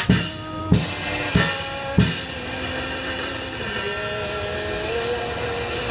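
Drum kit played with sticks: four strikes about two-thirds of a second apart, with a cymbal left ringing after the third. The kit then stops, leaving the ring and a steady pitched hum that slides up a little near the end.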